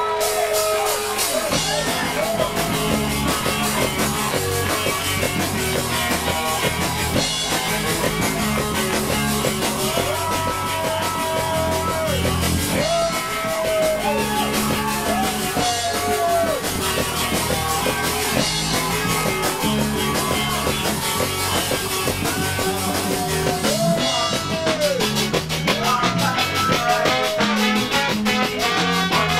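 A ska band playing live: horns including trombone over electric guitar and drum kit, in a steady, upbeat rhythm.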